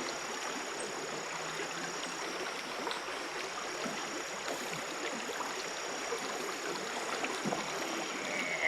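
Creek water running over a shallow riffle, a steady even rushing.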